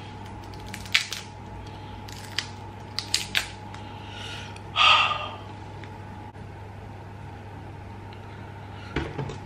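Roasted chestnut shells cracking as they are peeled by hand: a few sharp cracks in the first few seconds and a louder, longer crunching rustle about five seconds in.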